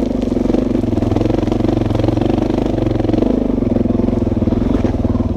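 Suzuki DR-Z400 dual-sport motorcycle's single-cylinder four-stroke engine running under throttle while riding a dirt trail, with the revs dipping briefly a little after three seconds in and then picking back up.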